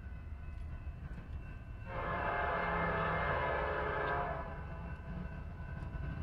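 Freight locomotive air horn sounding one long blast, starting about two seconds in and fading after about three seconds, over the train's low steady rumble.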